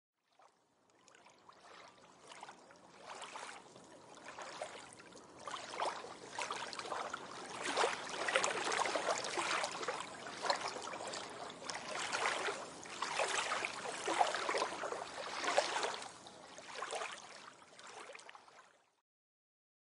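Gurgling, bubbling water with an uneven, splashy texture, fading in over the first couple of seconds, swelling in the middle and fading out about a second before the end.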